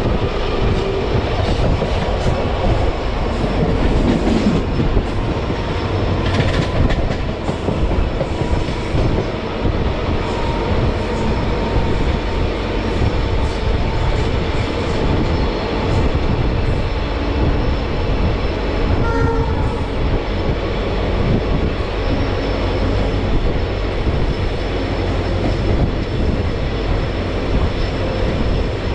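Passenger train running along the track: a steady, loud rumble of wheels on rails, with a brief horn about two-thirds of the way in.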